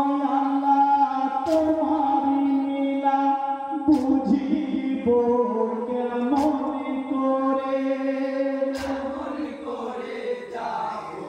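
A group of men singing a Bengali marsiya, a mournful elegy, in long held notes that step from pitch to pitch. A short sharp beat marks the rhythm about every two and a half seconds.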